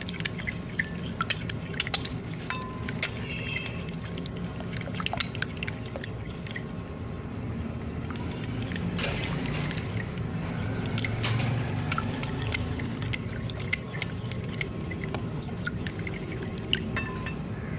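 A spoon stirring a thick yogurt-and-spice marinade in a glass bowl, with frequent small clinks of the spoon against the glass over a soft, wet stirring sound.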